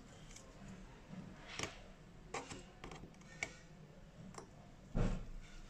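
Small irregular clicks and taps of hand tools on a smartphone's parts during disassembly, with one louder knock near the end.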